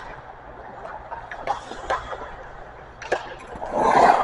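Scattered sharp knocks of hockey pucks and sticks on the ice, a few seconds apart, with a louder burst of noise near the end.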